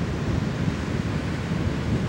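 Ocean surf breaking on the shore, mixed with wind buffeting the microphone in a steady low rumble.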